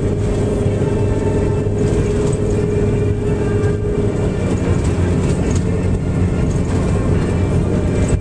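Steady cabin noise of a moving vehicle on the highway: engine drone and tyre and road noise. A steady low hum runs throughout, and a higher tone fades out about four seconds in.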